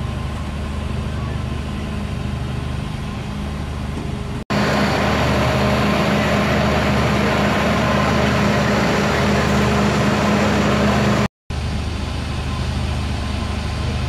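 Fire truck engine idling with a steady low hum. The sound jumps louder about four seconds in, then drops back after a brief dropout about three-quarters of the way through.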